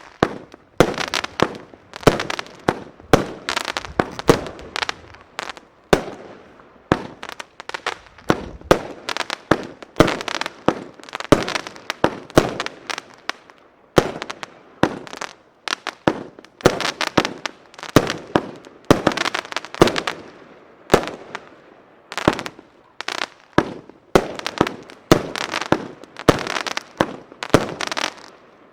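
Argento Kanji fan-shaped firework battery (cake) firing a rapid series of shots, each launch and burst sharp and followed by a hissing trail, at several shots a second with a few brief pauses between volleys.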